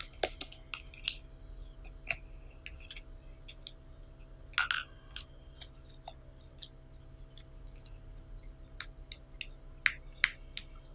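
Soft yellow slime squeezed out of a small plastic cup and then poked and pressed with fingertips, giving scattered sticky clicks and small pops, one louder squelch about four and a half seconds in and quicker clicks near the end. A faint steady hum runs underneath.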